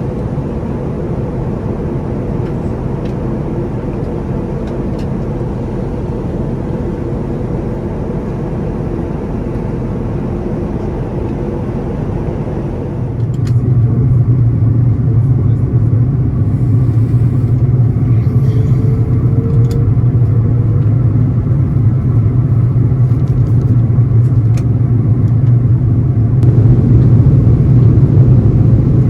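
Steady engine drone heard from inside a vehicle cabin. About halfway through it changes abruptly to a louder, deeper hum with less hiss.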